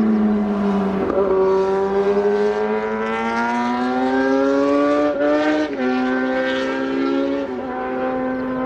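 Car engine being driven hard on a race circuit. Its pitch sinks, then climbs steadily for about four seconds under acceleration, and steps down sharply twice in the second half, as at gear changes or lifting off.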